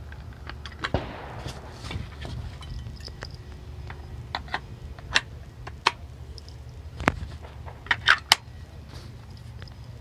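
Sharp metal clicks and knocks of a 20-gauge over/under shotgun being handled and readied, ending in three quick clicks together, over a low steady rumble of wind on the microphone.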